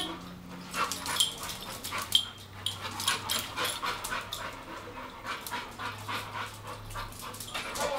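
Pit bull panting, with quick, repeated noisy breaths.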